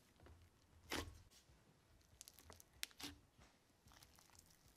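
Faint crackling and tearing of thick, crunchy partial-foam slime being stretched and squished by hand. It has scattered little pops, with a sharper snap about a second in and a cluster of snaps around two to three seconds in.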